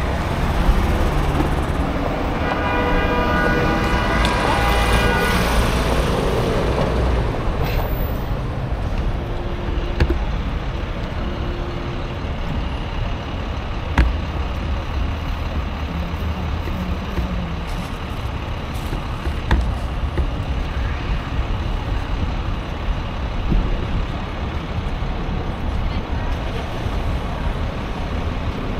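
City street traffic noise with a steady low rumble, heard from a moving bicycle. A vehicle horn sounds one steady tone for about three seconds a few seconds in.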